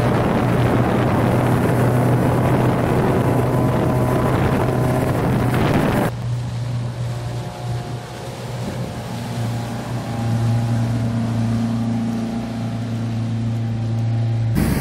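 Mercruiser 3.0 four-cylinder sterndrive engine running at speed, with water rushing past the hull and wind on the microphone. About six seconds in, the sound suddenly drops to a quieter, duller engine drone heard from a distance.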